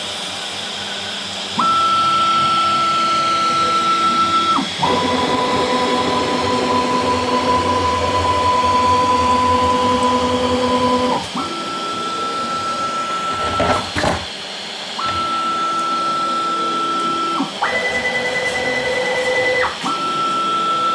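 DIY CNC router milling aluminium. Its drives whine at steady pitches that jump to a new pitch every few seconds as the moves change speed, over the hiss of the spindle. There is a sharp knock about 14 seconds in.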